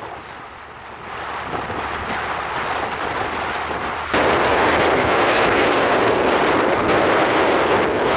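Wind rushing and buffeting over the microphone of a moving two-wheeler, mixed with road noise. It jumps suddenly louder about four seconds in.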